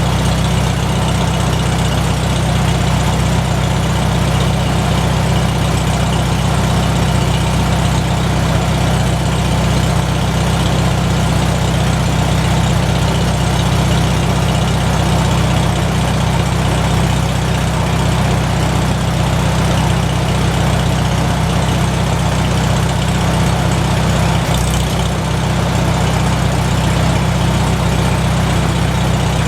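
McCormick-Deering W-4 tractor's four-cylinder engine idling steadily with an even, unchanging firing beat.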